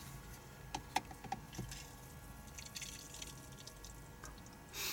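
Faint small drips and plastic clicks of liquid being handled: water being added to dilute a bottle of tube feed. A short louder rustle near the end.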